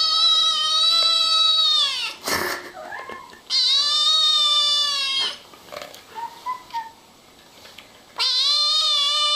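Grey-and-white kitten meowing: three long, loud meows, one at the start, a second about three and a half seconds in, and a third near the end.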